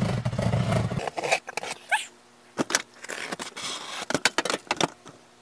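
Folding knife slicing through packing tape and corrugated cardboard on a shipping box: scratchy cuts and sharp clicks, with a short rising squeak about two seconds in. A low rumble of handling fills the first second.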